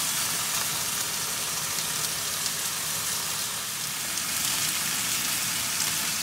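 Beef steaks sizzling in a hot ridged grill pan, a steady frying hiss.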